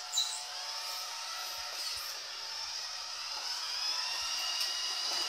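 Small electric motor and gears of a toy RC truck whining steadily while it tows a loaded plastic storage box, which slides and rumbles over the tiled floor. The whine's pitch rises and falls slightly with speed.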